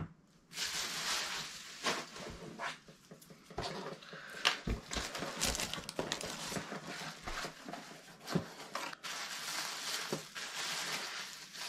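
Plastic packaging rustling and crinkling as items are unwrapped and a hand digs through packing peanuts in a cardboard box. A few small knocks are heard along the way.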